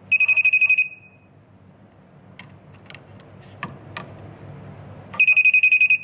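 Non-contact voltage tester pen beeping in quick pulses, about a dozen beeps a second, in two short bursts under a second long and about five seconds apart, as its tip is held at a live black wire: the tester signalling that this wire is hot, marking it as the line side. A few faint clicks between the bursts.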